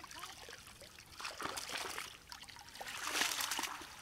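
Water trickling and splashing off a wet cast net as it is hauled up out of shallow pond water and bunched in the hands, with legs wading through the water. The splashing comes in two louder spells, about a second and a half in and again around three seconds in, the second the loudest.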